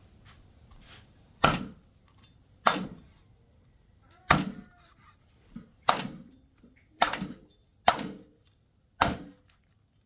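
Seven heavy chopping blows on wood, each a sharp thud, coming at uneven intervals of about one to one and a half seconds.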